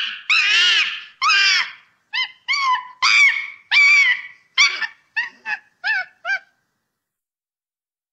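A monkey screaming in distress while a snake grips it: a string of about a dozen sharp, high-pitched cries that grow shorter toward the end and stop about six and a half seconds in.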